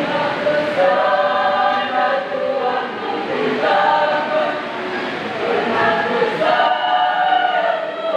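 A church choir singing in parts, in phrases of held chords.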